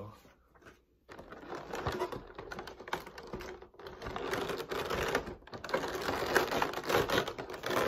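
Clear plastic blister packaging crackling and clicking in a dense run of small snaps as it is pulled apart by hand, starting about a second in.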